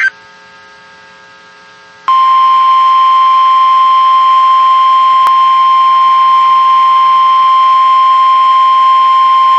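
NOAA Weather Radio 1050 Hz warning alarm tone, a single loud, steady, high-pitched tone. It starts about two seconds in, after a faint hum of radio static. The tone signals an alert broadcast and switches on tone-alert weather radio receivers.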